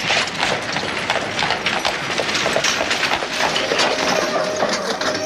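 Dense clattering and knocking of a horse-drawn wooden wagon amid a scuffle of armed men, with many quick irregular rattles. A held musical note comes in near the end.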